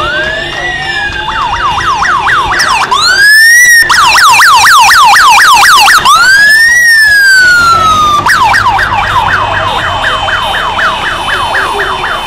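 Police motorcycle siren sounding loudly and switching modes. A fast yelp of about four sweeps a second changes to a slow rising-and-falling wail twice, around three and six seconds in, then returns to the fast yelp near the end.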